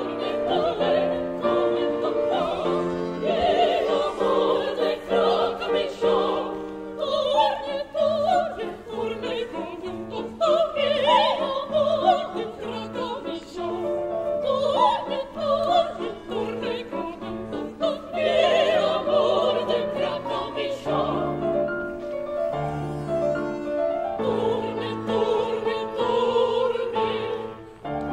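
Operatic singing with piano accompaniment, the voices gliding and holding notes over sustained chords.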